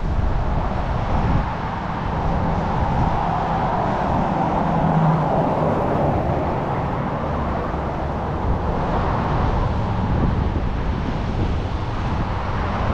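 Street traffic with cars going by on a busy road, mixed with wind blowing on the microphone; the traffic swells a little as a vehicle passes around the middle.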